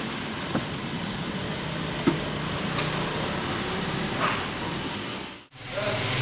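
Steady hum of a car heard from inside the cabin while driving, with a few faint light ticks. It drops out suddenly near the end, then a steady engine hum comes back.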